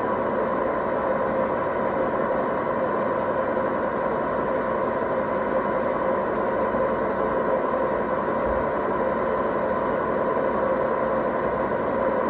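Hoover VHD 9163 ZI washing machine spinning at a steady speed, with a loud rumbling drone and a constant whine, from broken drum bearings.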